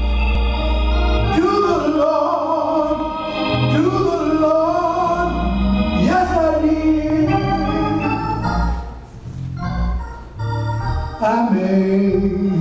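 An elderly man singing an old gospel song through a microphone, holding long, drawn-out notes, with organ accompaniment underneath.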